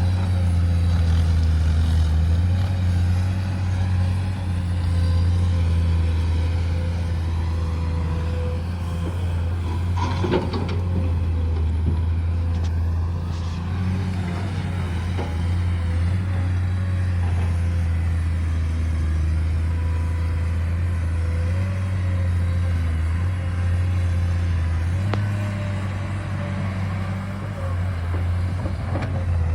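Heavy diesel engine of earthmoving machinery running steadily, its low drone easing and picking up a few times as the load changes.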